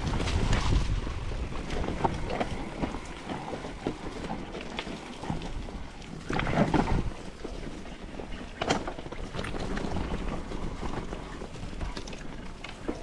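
Wind buffeting the microphone over the rattle and clatter of a mountain bike riding rough trail, with a loud burst of knocks about six and a half seconds in and a sharp knock near nine seconds.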